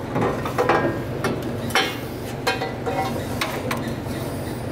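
Irregular metallic clinks and knocks as a steel exhaust header is worked up into place on an LS V8 from underneath the car, its tubes tapping against the block and subframe. A steady low hum runs underneath.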